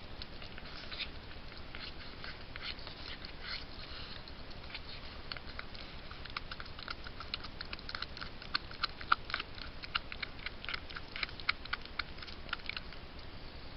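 A fisher chewing and tearing at a beaver carcass: a run of irregular sharp clicks, sparse at first and coming thicker from about halfway, over a steady hiss.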